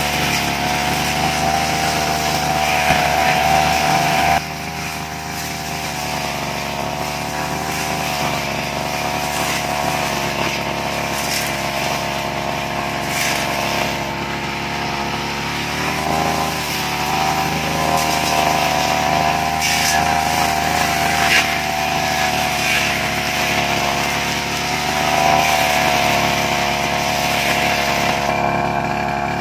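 Two-stroke brush cutter engine running steadily at working speed, its pitch wavering slightly as it cuts grass. The sound drops abruptly in level about four seconds in.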